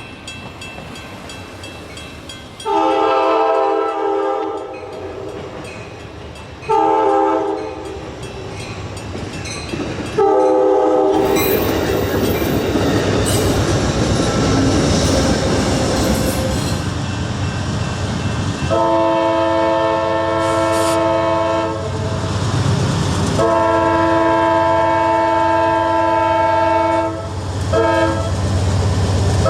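Nathan K5LA five-chime locomotive air horn sounding a series of blasts: one long, then two short ones. Then several seconds of a train's wheels clattering on the rails, then more long blasts and a brief one.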